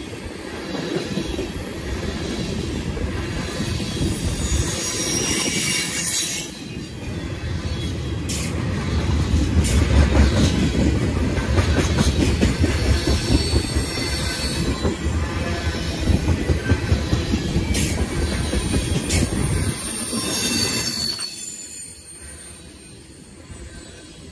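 Freight train tank cars rolling past close by: a steady rumble of steel wheels on rail, with sharp clicks and patches of high wheel squeal. The rumble drops off noticeably about three seconds before the end.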